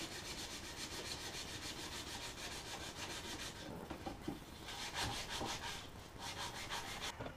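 Faint, quick back-and-forth rubbing strokes by hand on an oak saw-vise board, several a second, growing louder in the second half.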